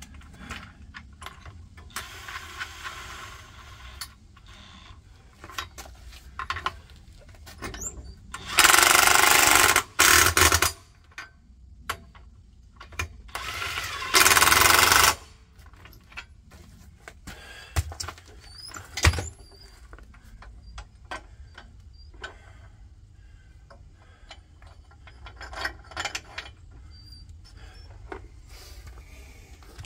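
Cordless impact wrench hammering on the bolts of a compact tractor's three-point hitch weight bracket: two loud bursts back to back about nine seconds in, and a third about five seconds later. Short clanks and knocks come between them.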